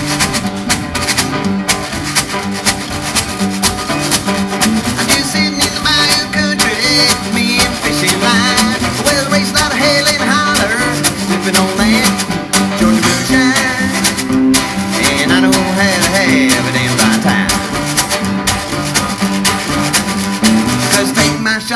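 Live acoustic string band playing an instrumental passage: banjo and acoustic guitars picking and strumming over a washboard rhythm.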